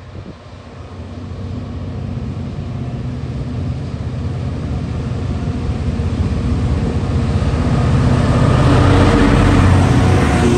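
Class 66 diesel-electric freight locomotive, with its EMD two-stroke V12 engine, hauling a container freight train as it approaches and passes close by. It grows steadily louder and is loudest in the last couple of seconds as the locomotive draws level.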